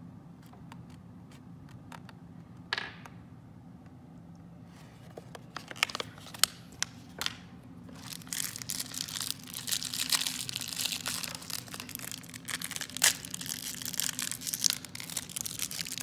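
Pink plastic wrapper around a small L.O.L. Surprise doll being torn and crumpled by hand. A few scattered clicks and rustles at first, then continuous crinkling from about five seconds in, louder in the second half.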